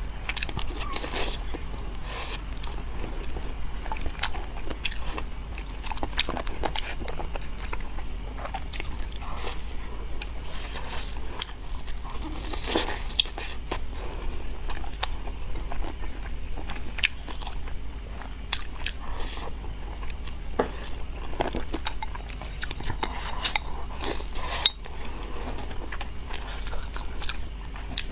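Close-miked eating: biting and chewing stewed spicy chicken wings and sauce-soaked rice, with frequent sharp wet mouth clicks, over a steady low hum.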